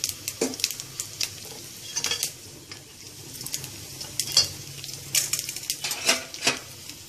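Tempering spices (mustard seeds, cumin, dried red chillies, chana dal and urad dal) sizzling in hot oil in a kadai, with scattered sharp clicks and taps throughout.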